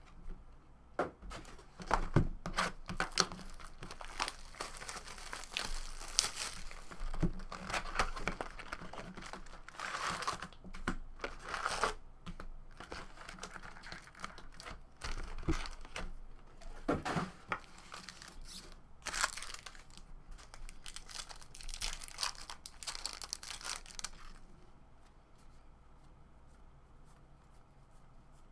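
Foil trading-card pack wrappers being torn open and crinkled by hand, in a long run of crackling, rustling bursts that dies down for the last few seconds.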